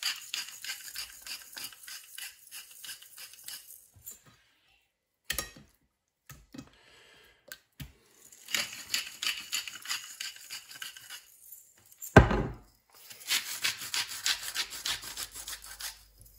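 Handheld salt and pepper mills twisted back and forth, grinding in three bursts of quick, rhythmic scraping strokes. A few short clicks come between the bursts, and a single low thump about twelve seconds in.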